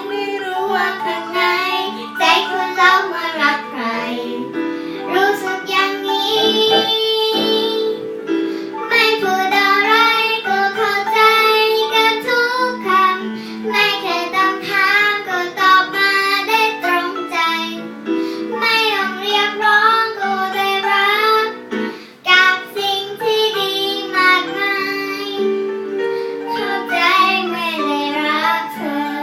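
A girl singing a Thai song with piano accompaniment, the voice carrying the melody over steady held chords.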